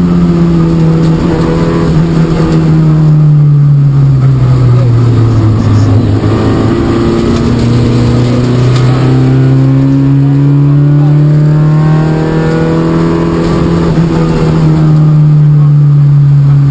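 Peugeot 106 Rally N2's four-cylinder engine at rally stage pace, heard from inside the cabin. The engine note falls as the car slows over the first few seconds, steps up about six seconds in, then climbs slowly and holds high as the car accelerates down a straight.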